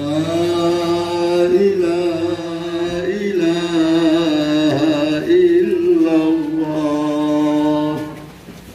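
Voices chanting in unison at a funeral, one long held, slightly wavering line that fades out near the end.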